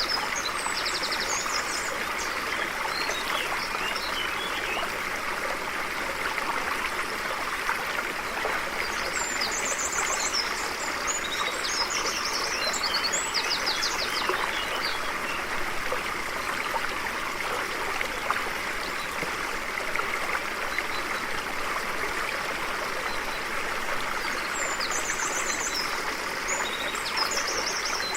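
A stream flowing steadily over rocks, with birds singing rapid trilled phrases and chirps over it near the start, about ten seconds in, and again near the end.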